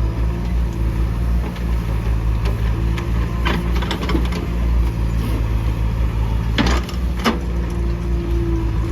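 Mahindra backhoe loader's diesel engine running steadily under work, with a few sharp knocks about halfway through and again near the end as the machine works the gravel.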